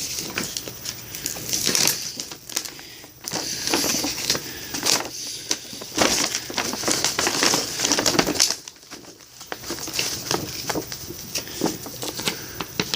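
Packaging being handled during an unboxing: irregular crinkling and rustling with small clicks, coming in uneven bursts.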